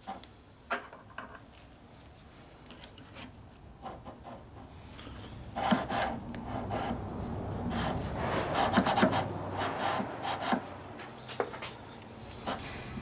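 Hand rubbing and scrubbing on lathe parts, loudest from about halfway in for several seconds, with scattered small clicks and knocks of parts being handled before and after.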